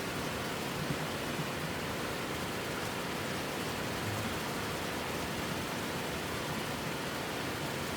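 A tiered mountain waterfall rushing steadily, an even roar of falling water without break.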